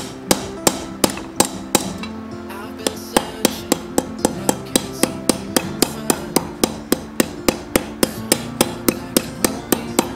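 Ball-peen hammer striking a hot metal fishing-spoon blank in quick, even blows, about four a second, with a short pause about two seconds in. Background music plays underneath.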